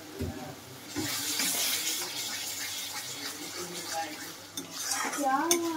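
Spice masala frying in a kadhai: a steady sizzle that starts about a second in, with a spatula stirring and scraping the thick paste around the pan as it is browned (bhuna). A short voice sound comes near the end.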